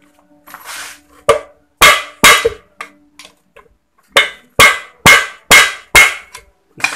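Hammer blows on a steel bar during a Yamaha V80 engine teardown, driving a part loose: about ten sharp metallic strikes, a few near the start, then a steady run of about two a second.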